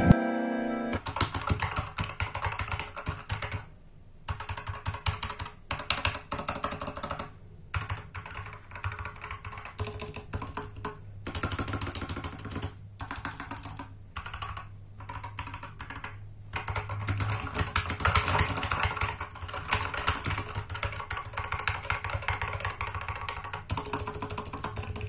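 Typing on a Slec AGI Mini 61 mechanical keyboard with optical brown switches and PBT keycaps: runs of quick key clacks broken by short pauses.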